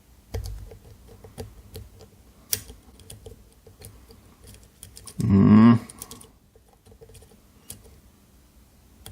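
Light metallic ticks and taps of a flag pick and tension wrench working the pins of a dimple lock cylinder clamped in a vise. About five seconds in there is a brief, louder pitched tone lasting about half a second.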